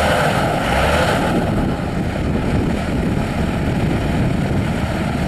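A Bobcat S250 skid steer's 75 hp Kubota V3300 four-cylinder turbo diesel running loudly while the machine is worked. A louder rushing sound eases off about a second in.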